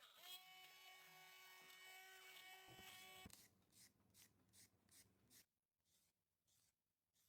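Small electric kitchen appliance motor running with a steady whine, dipping briefly in pitch at first and then stopping about three seconds in. A run of light ticks follows for about two seconds.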